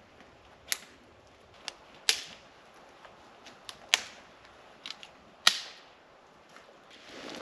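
Dry twigs being snapped by hand for kindling: a string of sharp cracks, about seven of them, irregularly spaced roughly a second apart.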